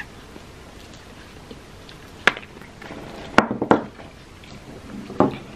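Tableware clinking and knocking during a meal: a sharp clink about two seconds in, two more close together in the middle, and a duller knock near the end.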